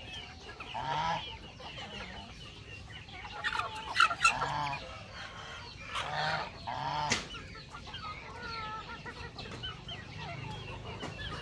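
A backyard flock of chickens clucking and domestic geese honking now and then, in short scattered calls, with a couple of brief sharp clicks.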